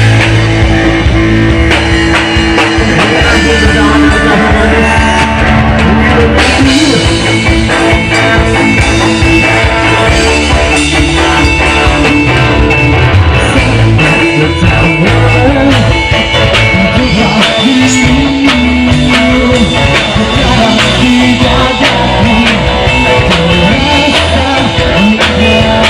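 Live rock band playing loudly: drum kit, electric guitars and bass, with a singer's voice over them.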